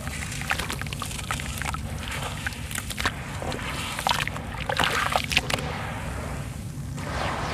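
Wet sand-cement chunks crumbled by hand in a basin of water, then the gritty slurry swished and rubbed around: crackly gritty crumbling with water sloshing, busiest in the middle and settling toward the end.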